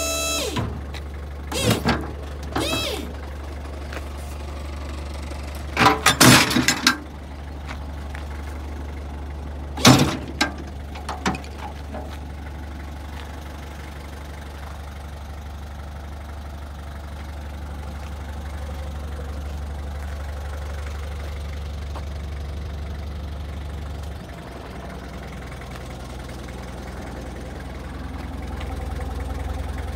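Isuzu Elf light truck's engine idling steadily, a low even hum. Over it come several short, loud sounds that slide in pitch: a couple about two seconds in, a cluster around six seconds and another around ten seconds.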